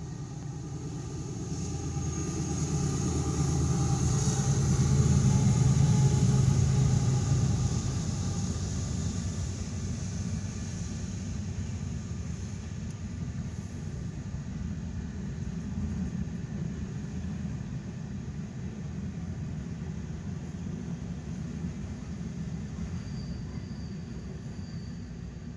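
Union Pacific C44ACCTE and C45ACCTE diesel locomotives of a mixed freight train passing close by, heard from inside a car. The engines' low drone builds to its loudest about five to seven seconds in, then gives way to the steady rumble of freight cars rolling past.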